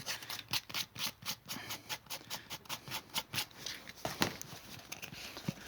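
P100-grit sandpaper rubbed back and forth by hand over a rubber inner tube, quick strokes about four a second that thin out after about three and a half seconds. The sanding roughens and cleans the rubber so a patch will bond.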